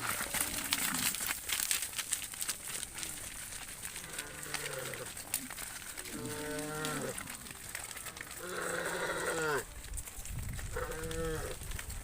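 Cattle mooing: four short calls, each bending down in pitch, starting about four seconds in. The first few seconds hold crackling and rustling.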